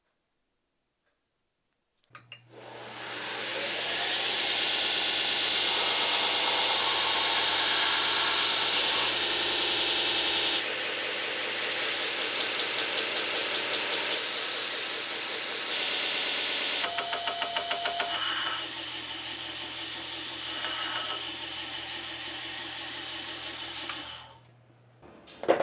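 An electric belt grinder switched on about two seconds in, its motor running up to speed, with a wooden knife handle pressed against the running abrasive belt to shape it, giving a steady grinding hiss over the motor hum. The grinding stops shortly before the end.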